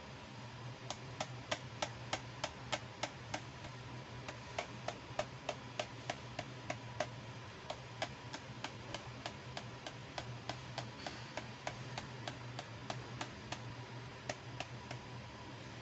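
Light, sharp clicks repeated about four times a second in runs with short pauses, from small plastic toy accessories being clicked and handled.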